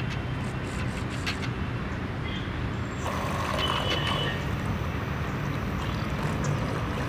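Small DC motor and propeller of a plastic-bottle RC boat starting up about three seconds in, churning the water, over a steady low outdoor rumble.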